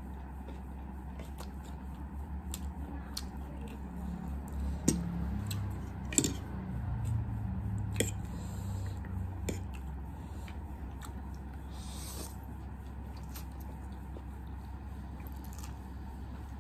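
Close-up eating sounds of instant ramyun noodles: chewing and slurping, with a few sharp clicks of a metal fork on the plate between about four and eight seconds in. A steady low hum runs underneath.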